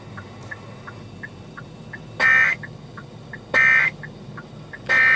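Emergency Alert System end-of-message code: three short bursts of screechy digital data tones, about a second and a half apart, after a couple of seconds of faint radio hiss.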